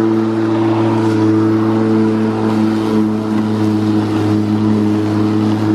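Makita DLM382 cordless lawnmower running while being pushed through grass: a steady motor and blade hum with an even rush of grass being cut.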